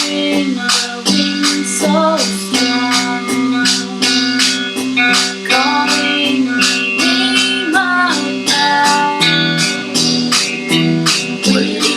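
Instrumental passage of a folk song: plucked acoustic guitar over a fast, even percussive beat, with a few sustained notes that glide up and down.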